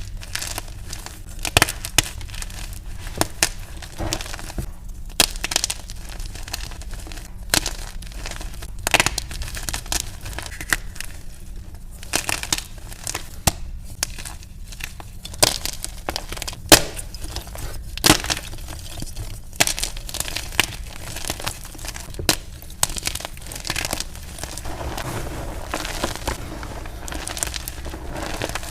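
Plain Jane gym chalk blocks being crushed and crumbled by hand, sped up to double speed: an irregular run of sharp cracks and snaps over a steady dry crunching, turning to a softer, more continuous crumbling near the end.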